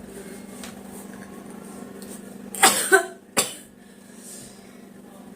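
A woman sneezes once, about two and a half seconds in: a short vocal 'ha' and then a sharp burst. The sneeze is provoked by tickling the inside of her nose with a thin stick.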